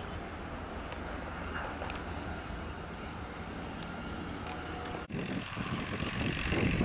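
A steady, distant rumble of diesel rail traffic with outdoor ambience. About five seconds in, the sound cuts abruptly to a louder, uneven rumble that keeps rising: an approaching WDP4D diesel locomotive, whose EMD two-stroke V16 engine drones as it nears.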